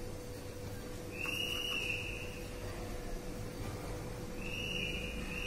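Two high whistle-like tones, each about a second long and dipping slightly in pitch, one about a second in and one near the end, over a faint steady hum.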